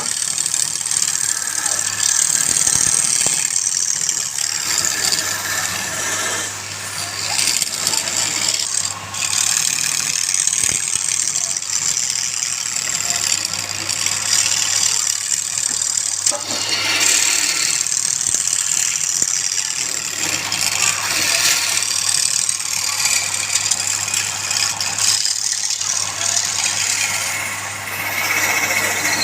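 A power tool running and working wood: a steady mechanical rasping noise over a constant low motor hum.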